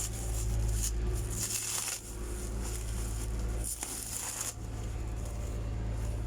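Packaging being unwrapped by hand: plastic wrap rustling and crinkling in short, irregular bursts, over a steady low rumble.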